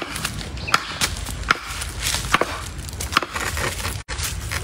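A blade hacking into a young giant bamboo shoot at the base of the clump to cut it free: sharp woody chops about five times, a little under a second apart.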